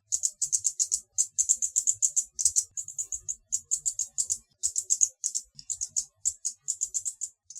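Hummingbird chittering: rapid, high, thin chip notes in quick bursts of several notes each, with short gaps between bursts. The notes cut off near the end.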